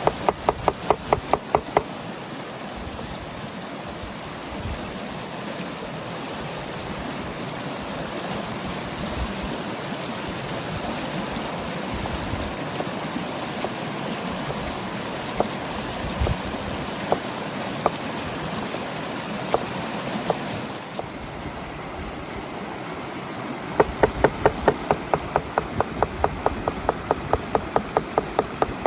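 River water running steadily, with runs of quick, even knocks, about four a second, in the first two seconds and again over the last five seconds.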